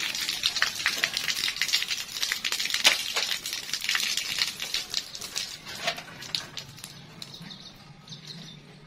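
Water pouring from an open pipe end and splashing below, a pattering splash that fades near the end as the flow thins to drips.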